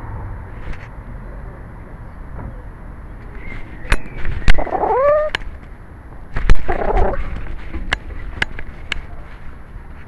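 Domestic cat meowing close to its collar camera's microphone: one call rising in pitch about five seconds in, then a rougher call a second and a half later. Sharp knocks come in between as the camera bumps against things.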